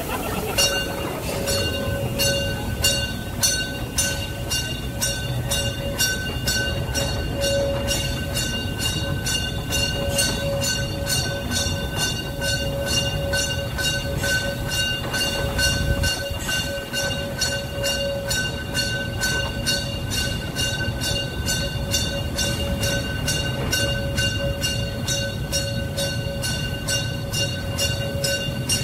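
Narrow-gauge steam tank locomotive 99 331 moving slowly past with a low rumble and an even beat of about three strokes a second, with a steady high-pitched tone over it.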